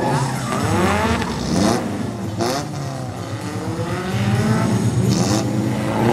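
Small pickup truck engines revving up and down hard as the trucks slalom, their pitch rising and falling, with a few short tyre skids.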